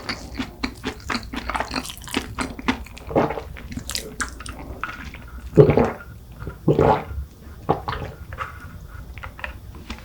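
Close-miked chewing of a flaky cronut, with many soft crackles and wet mouth clicks. Two louder, deeper mouth sounds come about six and seven seconds in.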